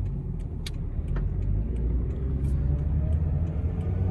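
Pickup truck with a camper on the back, driving: a steady low engine and road rumble, with a faint engine note rising slightly in pitch as it speeds up, and scattered light clicks and rattles.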